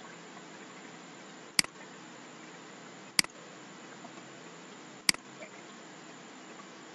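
Three sharp single clicks of a computer mouse button, about a second and a half to two seconds apart, over a faint steady hiss.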